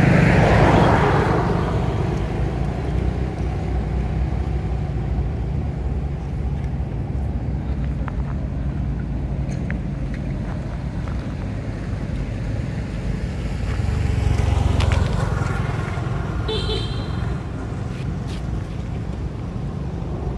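Road traffic: vehicles passing, loudest right at the start and again about fourteen seconds in, over a steady low engine rumble. A short high-pitched tone sounds about sixteen and a half seconds in.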